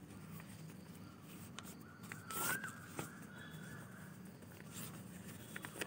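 Faint handling of folded paper, with small clicks and rustles. About halfway through, a bird calls once: a short harsh caw, then a thin rising note that holds for a moment.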